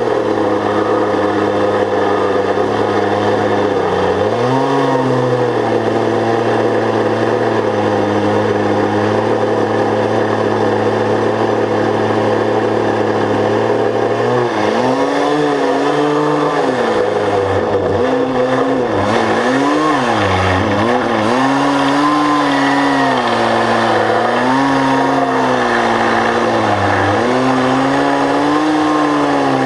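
An engine running steadily, then, from about a third of the way in, its pitch repeatedly sags and recovers as it is loaded down and picks up again.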